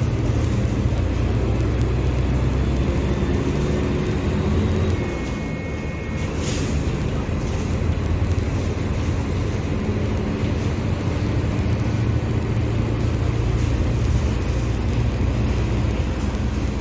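Mercedes-Benz OF-1721 BlueTec 5 bus's four-cylinder turbodiesel engine running under way, easing off briefly about five seconds in with a short hiss, then pulling steadily again.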